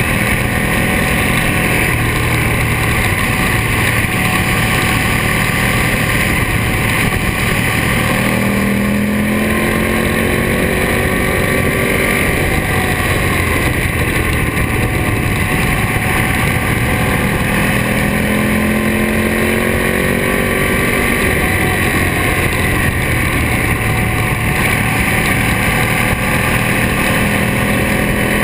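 Ducati Monster S4RS's 998 cc Testastretta L-twin running through Termignoni exhausts at riding speed, its pitch rising three times as it pulls under acceleration, over steady wind rush on the microphone.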